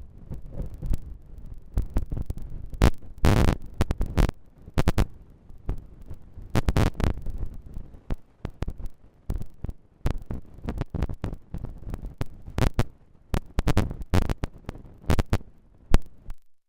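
Gusty wind buffeting the microphone during a storm: uneven low rumbling gusts with sharp pops, cutting off suddenly near the end.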